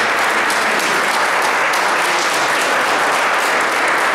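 A small crowd applauding, many hands clapping steadily.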